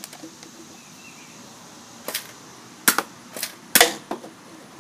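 Nerf Hammershot dart blaster being cocked and fired: four sharp plastic snaps within about two seconds, starting about two seconds in.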